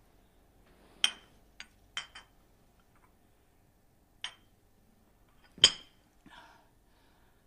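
About six sharp clinks of hard objects knocked together, each ringing briefly, at irregular intervals; the loudest comes about five and a half seconds in.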